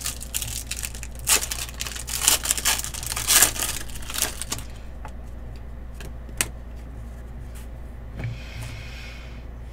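A foil trading card pack being torn open, its wrapper crinkling and tearing for about the first four and a half seconds. After that, a few light ticks and a brief rustle as the cards are handled.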